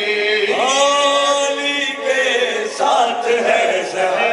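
Men chanting an Urdu qasida in praise of Ali into a microphone. One voice slides up into a long held note about half a second in.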